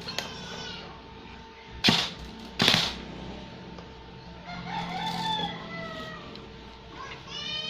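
Two loud sharp knocks a little under a second apart, followed by a rooster crowing in the background, with shorter animal calls near the start and end.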